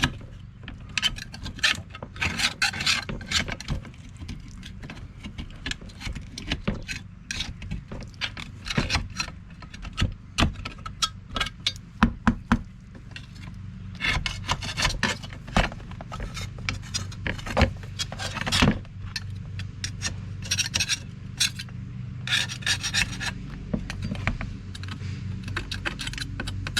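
A scraper being dragged in short, irregular strokes over a steel tool head, scraping off thick, several-layer paint softened by a chemical paint stripper, over a steady low hum.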